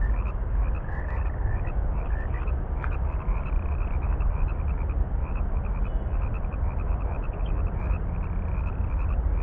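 Frogs calling in a steady chorus of short notes repeated several times a second, over a steady low rumble.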